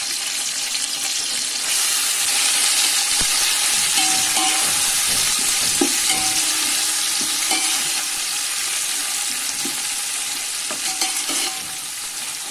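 Hot oil sizzling in a metal pot as fried onions, mint, coriander and green chillies are stirred with a slotted metal spatula. The spatula scrapes against the pot now and then. The sizzle gets louder about two seconds in and eases near the end.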